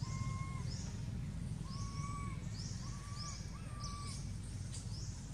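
Outdoor animal calls: short high chirps repeating irregularly, and four drawn-out whistled notes, each held at one pitch for about half a second. A low steady rumble runs underneath.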